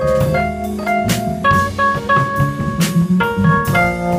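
A jazz group playing live: an electric keyboard plays held chords and melody notes over a drum kit, with sharp strikes every second or so.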